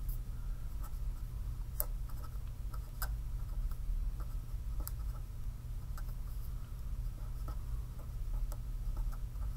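Marker writing on paper, faint scratching with a few light taps, over a steady low hum.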